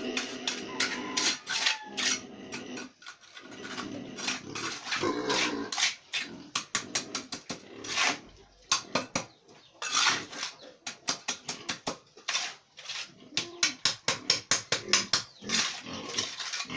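Quick run of scraping and clinking strokes, about three or four a second, with occasional pig grunts among them.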